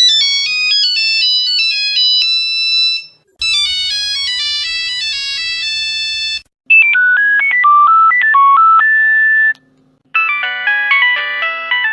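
Nokia mobile phone ringtones played one after another: four short melodies of about three seconds each, separated by brief gaps. The first two are high and bright. The third is lower, with a steady hum beneath it. The fourth sounds several notes at once.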